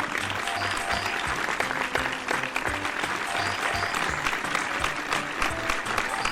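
Applause, a dense run of clapping, over background music with a regular low bass line.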